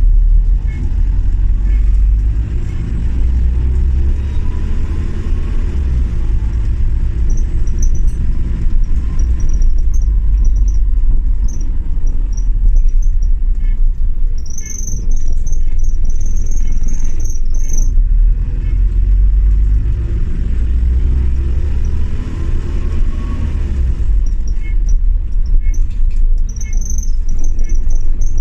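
Single-deck bus running, heard from inside the passenger saloon: a steady low engine and road rumble, with the engine pitch rising twice as it pulls away. Partway through, a run of regular ticks and a thin high whine come and go.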